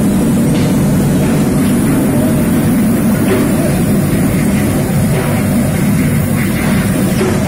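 Hasenclever friction screw forging press and shop machinery running with a loud, steady low hum, with a few faint knocks through it.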